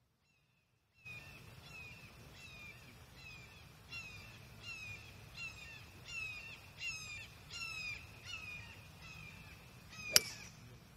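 A bird calls over and over, a quick run of short falling notes about twice a second, starting about a second in. Near the end a golf club strikes the ball off the tee with one sharp hit, the loudest sound.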